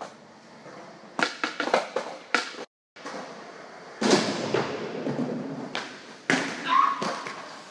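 Skateboard on a concrete floor: a cluster of sharp clacks a second or so in, wheels rolling from about four seconds in, then hard knocks as the skater jumps and bails and the board clatters down.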